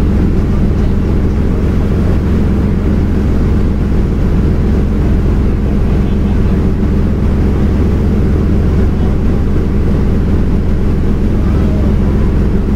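A fishing boat's engine running with a steady low drone that does not change.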